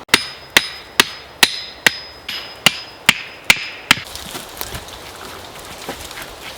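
Axe blows on wood, about ten evenly spaced strikes roughly two a second with a slight ring, stopping about four seconds in.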